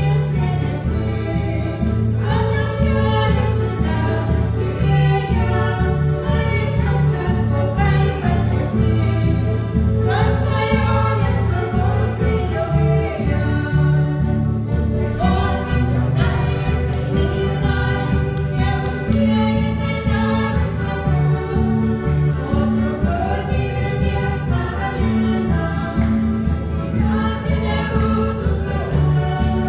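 Lithuanian folk kapela playing a song with a group of voices singing together over a steady, pulsing bass line.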